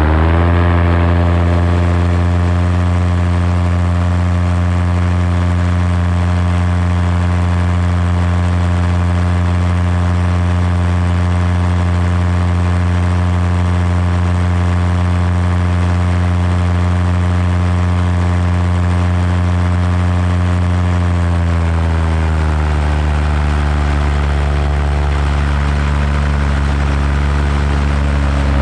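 Paramotor engine and propeller running steadily in flight, close and loud; about three quarters of the way through the throttle is eased back and the pitch drops, then holds at the lower note.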